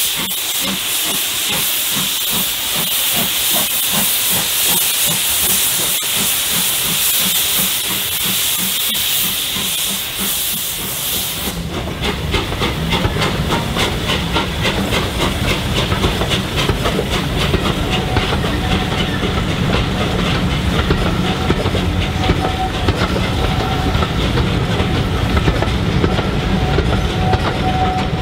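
Steam locomotive 45596 Bahamas, an LMS Jubilee class 4-6-0, pulling away with its cylinder drain cocks hissing over a regular beat of exhaust. About eleven seconds in this gives way abruptly to the heavier rumble and clatter of the coaches' wheels rolling past over the rail joints.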